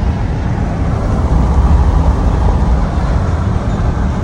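Steady low rumble of a moving car, with no distinct events.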